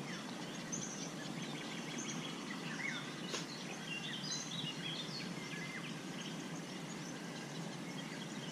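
Outdoor ambience: a steady soft hiss with scattered short bird chirps and quick whistled calls, and one faint click about three seconds in.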